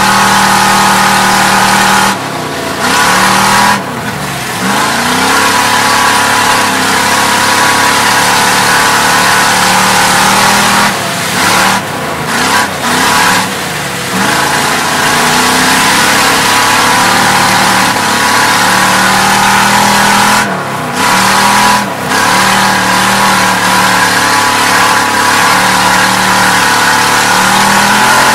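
Oldsmobile 350 V8 race car heard from inside the cabin, running hard at full throttle. A few times the throttle lifts briefly for the turns and the engine note drops, then climbs again as it accelerates back out.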